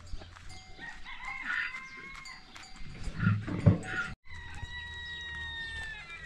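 A rooster crowing once, a long held call of about two seconds that drops off at the end, after some shorter fowl calls. Two dull thumps come just before the crow and are the loudest sounds.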